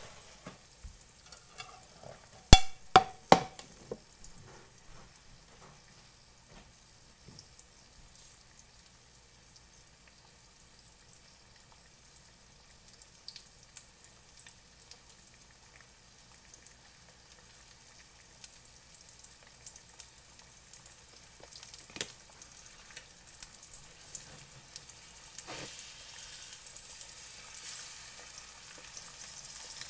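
Eggs frying in bacon grease in an electric fry pan. The sizzle is soft at first and grows steadily louder toward the end. A few sharp clinks of a utensil against the pan come about three seconds in, and single knocks follow later.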